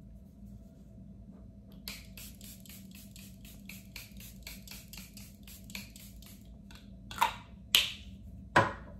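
Pump-action facial setting spray being misted: a quick run of light spritzes, about five a second, for several seconds, then three louder, longer spritzes near the end.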